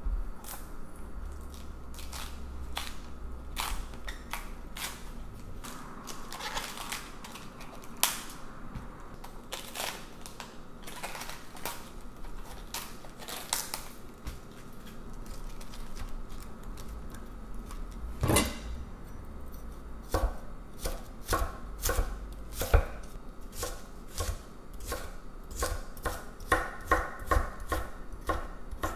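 Red cabbage leaves being pulled off the head with scattered crisp crackles, then a kitchen knife shredding red cabbage on a wooden cutting board in a quickening run of sharp chopping strokes, two or three a second near the end.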